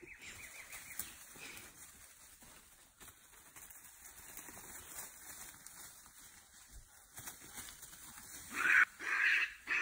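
White-faced capuchin monkeys calling: faint calls at first, then a loud burst of calls near the end.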